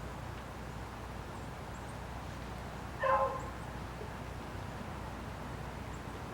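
A single short animal call, a bark-like yelp, about three seconds in, over a steady low rumble of background noise.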